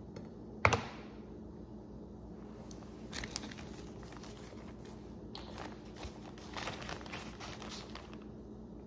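One sharp knock on the counter less than a second in, then a zip-top plastic bag crinkling and rustling in short spells as it is picked up and opened.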